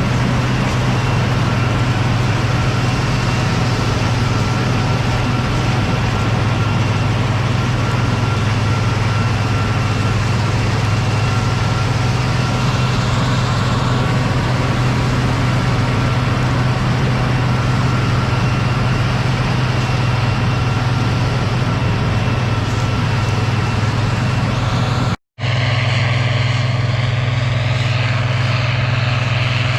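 Case IH 1640 combine's diesel engine and threshing machinery running steadily while harvesting soybeans, a constant loud low drone. The sound cuts out for an instant about 25 seconds in and then carries on.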